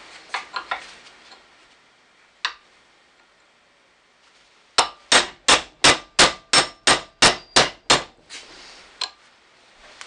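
Hammer blows on a tapered punch, driving the grooved pin out of a cast steel 1967 Mustang lower door hinge held in a vise. A few light taps come first, then about five seconds in a run of about ten sharp, ringing metal-on-metal strikes, about three a second, tapering off near the end.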